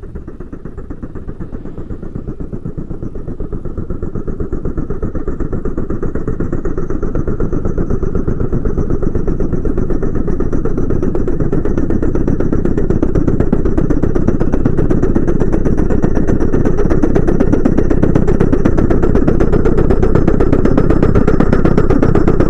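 Train approaching: a dense, rapidly pulsing mechanical rumble that grows steadily louder.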